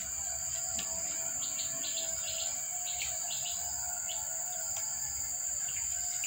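Steady high-pitched insect drone, with a run of short bird chirps about one and a half to three and a half seconds in.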